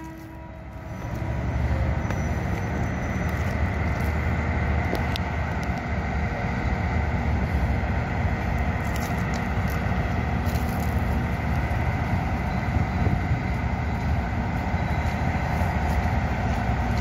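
Steady low rumble of a GE diesel-electric freight locomotive running as it creeps toward the camera, mixed with road-traffic noise; the level holds even throughout.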